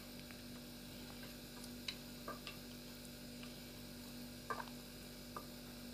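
A wooden spoon stirring meat and vegetables in an aluminium pot, giving a few faint scattered clicks against the pot over a steady low hum.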